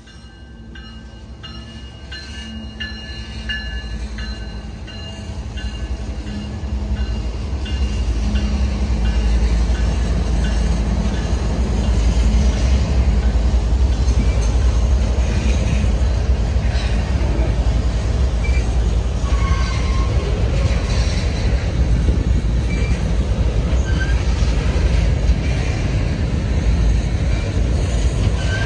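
CSX freight diesel locomotives passing close by with a steady engine drone for the first several seconds. A long string of grain covered hopper cars then rolls past with a heavy, steady low rumble of wheels on rail that builds over the first dozen seconds, and a few brief wheel squeals in the second half.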